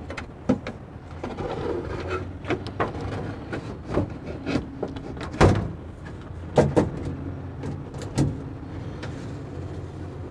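Sheet-metal display player box being fitted into a metal display cabinet, giving irregular knocks and clatters with the loudest a little past the middle, over a steady low hum.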